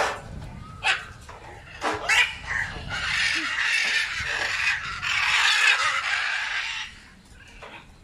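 A flock of macaws squawking and screeching. A few short, harsh calls come in the first two seconds, then a long stretch of overlapping squawks dies down about seven seconds in.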